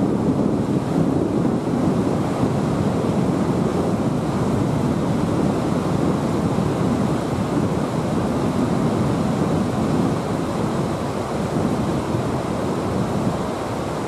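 Steady rushing of water over a shallow river riffle, a low, even roar with no breaks.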